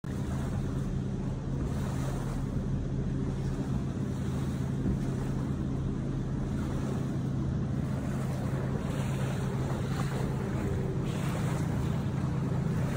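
Steady low rumble with wind gusting across the microphone.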